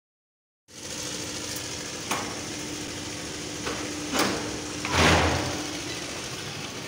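A wooden door's metal latch clicking as the door is unlocked and opened: a few sharp clicks, then a louder knock about five seconds in, over a steady hiss.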